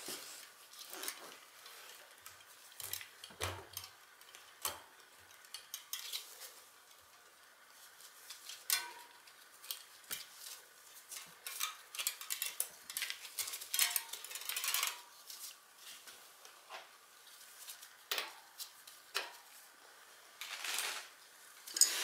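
The loose bicycle chain of a homemade chain whip and metal tools clinking and rattling as they are handled around a bicycle cassette, in scattered, irregular clicks with short quiet gaps.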